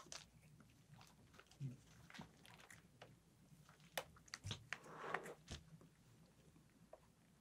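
Faint, scattered clicks and crunches of a cat chewing dry kibble, with near silence between them.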